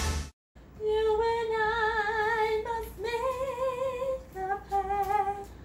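A woman singing unaccompanied: three long held notes with a wide vibrato, each about a second or more, the second a little higher and the third lower, after a brief silence. Just before the singing, the end of the intro music cuts off.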